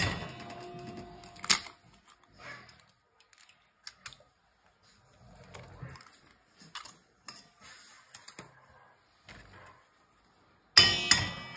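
Raw eggs cracked against the rim of a stainless steel bowl: sharp knocks that set the bowl ringing, one at the start, another about a second and a half in, and a loud one near the end, with soft clicks and quiet gaps between.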